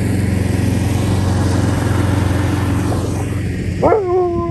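A ride-on lawn mower's engine running steadily. Near the end, a husky-type dog gives a long howl that swoops up sharply and then holds its pitch, sagging slightly.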